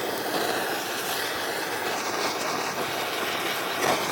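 Spare ribs sizzling on a barbecue grill: a steady, dense crackling hiss that holds at an even level.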